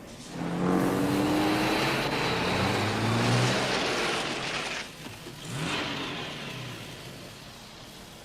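Car engine accelerating with rising pitch for about four seconds, then briefly revving up again and fading away.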